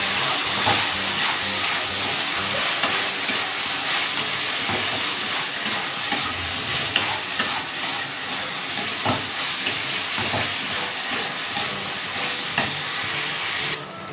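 Onions, capsicum and spice paste sizzling in hot oil in a kadai while being stirred, with occasional clicks and scrapes of the spatula against the pan. The sizzle drops away sharply near the end.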